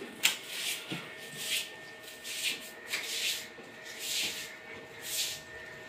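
Broom swishing across a hard floor in repeated sweeping strokes, about one a second.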